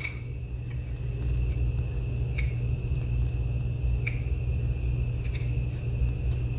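A steady low electrical hum with a faint high whine over it, and four light clicks, a second or two apart, from the plastic disc clamp being handled.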